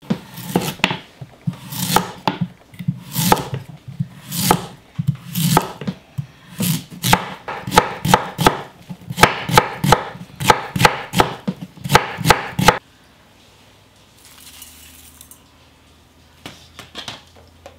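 Kitchen knife cutting a Korean radish on a wooden cutting board, each stroke a crisp crunch through the radish ending in a knock on the board. The strokes come about one a second at first, then about two a second as the slices are cut into matchsticks. They stop about two-thirds of the way in, after which only a few faint sounds remain.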